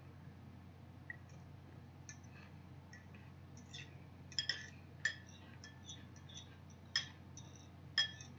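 Cutlery clinking against a glass dish while eating: scattered light ticks, then louder ringing clinks from about the middle, a quick double clink followed by single ones, the loudest near the end.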